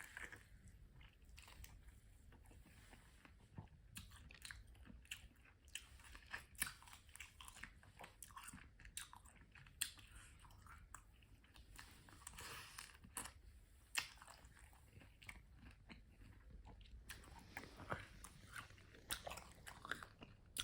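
Someone eating cooked baby crabs: shells crunch and crack in sharp, irregular snaps between quiet chewing.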